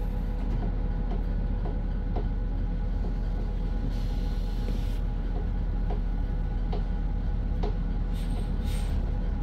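Inside a moving bus: a steady low rumble with a faint steady whine. A faint tick repeats under it about every three-quarters of a second, and two brief hisses come in the middle and near the end.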